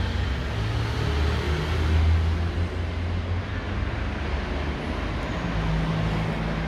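Steady low rumble of motor-vehicle engines, with an engine hum that shifts in pitch now and then.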